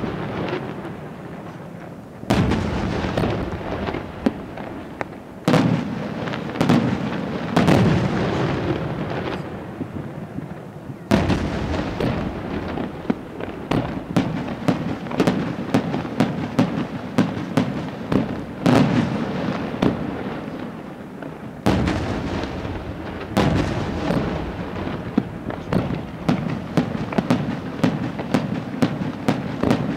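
Aerial firework shells bursting in quick succession. Heavy booms with rolling echoes are mixed with rapid strings of sharper bangs, which grow dense through the second half.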